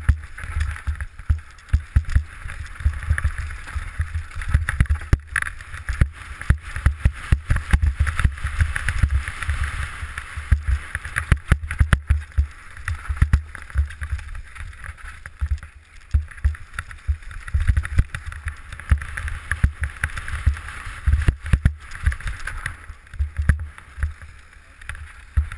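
Mountain bike descending a rough dirt trail, heard through a camera on the rider's helmet: a constant stream of jolts and knocks from the bumps over a low rumble and a steady rushing noise.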